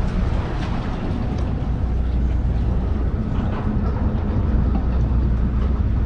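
Wind buffeting the microphone: a steady low rumble with surf noise beneath it.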